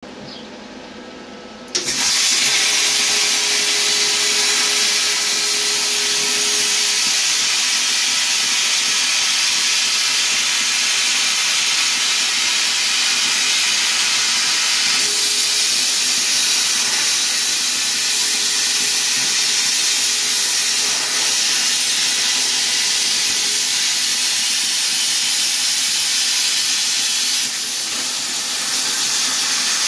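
CNC plasma cutter torch firing and cutting sheet metal: a loud, steady hiss of the plasma arc and its air jet. It starts abruptly about two seconds in, with a faint steady tone underneath at times.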